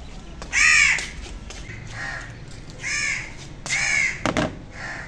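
A crow cawing about five times, the first caw the loudest. There is a short knock about four seconds in, as a mug is set down on a plastic table.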